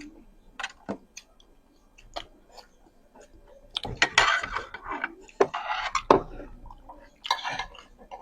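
Close-miked chewing and crunching of food, with sharp short mouth clicks at first, then louder, longer crunching stretches about four seconds in and again near the end.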